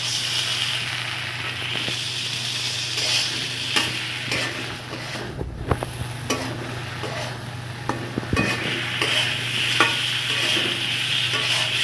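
Brinjal and taro pieces frying in hot oil and spice paste in a kadai. A steady sizzle runs under scattered clicks and scrapes of a spatula against the pan as they are stirred, and the sizzle drops briefly about halfway.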